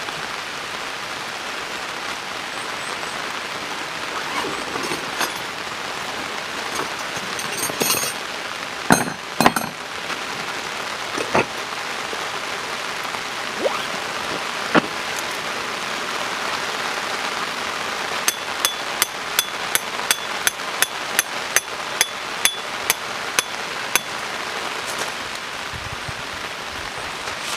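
Steady heavy rain. A few scattered knocks and clinks come in the first half, then a regular run of about sixteen sharp, ringing metal strikes, about three a second, like a hammer hitting metal.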